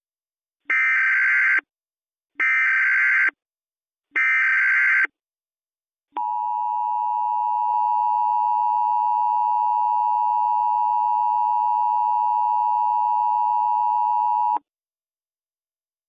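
Emergency Alert System SAME header: three short bursts of digital data warble, each about a second long. About six seconds in comes the EAS two-tone attention signal, a steady dual tone held for about eight seconds, announcing that an alert message follows.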